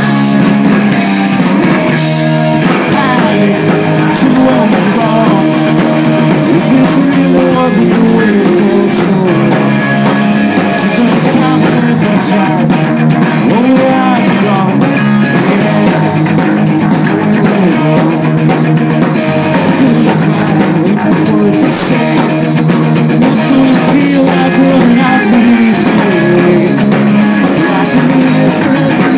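Rock band playing live: electric guitar and drum kit, with steady music throughout.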